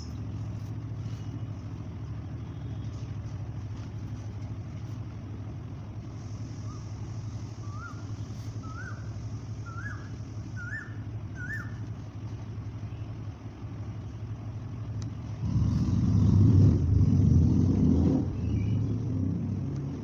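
Steady low background rumble that swells louder for about three seconds near the end. In the middle comes a run of six short rising chirps, about a second apart.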